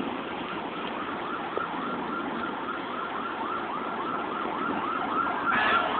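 Emergency vehicle siren in a fast yelp, rising sweeps about three a second. Near the end a second, louder siren comes in.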